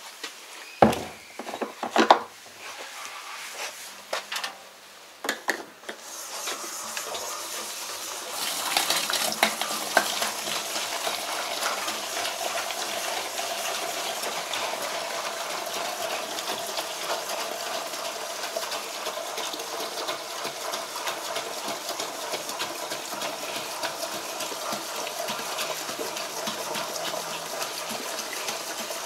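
A few knocks and clatters as a plastic jerry can and a hose nozzle are handled, then from about eight seconds in a steady rush of fuel running from the storage tank's hose nozzle into the plastic jerry can.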